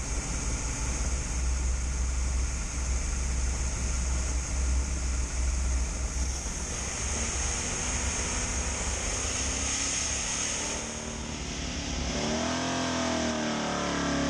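Chevrolet SB2 small-block V8 race engine running hard under load on an engine dyno during a dyno pull. The sound eases about eleven seconds in.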